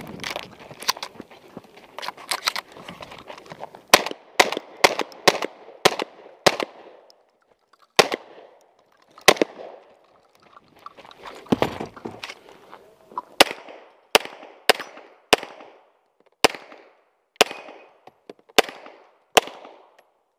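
Gunfire from a 3-gun stage: shotgun shots, including a quick string of five about half a second apart, then after a pause near the middle a steady string of handgun shots, roughly one every half second to a second.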